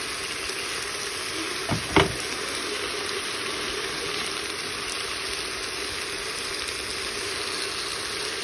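Dried aubergine, onion and hulled wheat frying with tomato paste in a metal pot, a steady sizzle as they are stirred with a wooden spoon. Two sharp knocks about two seconds in.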